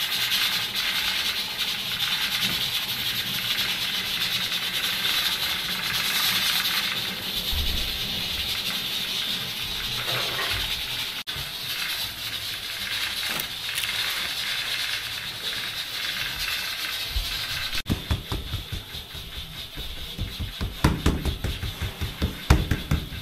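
Gas burner in a tandoor bread oven, hissing steadily. It fades after about 18 seconds and gives way to irregular soft thumps.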